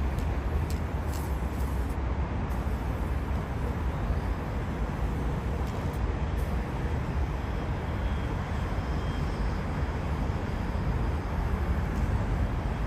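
Steady city traffic noise: an even low rumble with a hiss of road noise over it.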